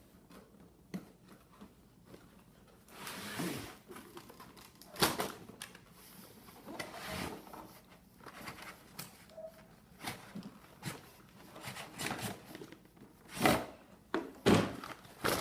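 Cardboard toy box being opened and its packaging handled: irregular scrapes and rustles with a few sharp knocks, the loudest ones near the end.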